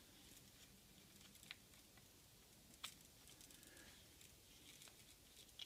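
Near silence: quiet room tone with two faint clicks, about a second and a half and three seconds in, from hands handling the Kydex sheath and its leather straps.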